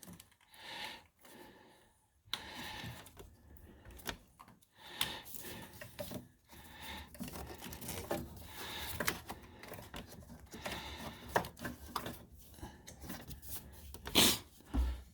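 Plastic wiring connector and clips being handled and pressed into place: scattered small clicks and rustling, with a louder click and a thump near the end.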